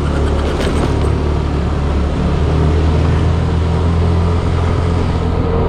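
Motor scooter engine running at a steady cruise, a constant low hum under road noise.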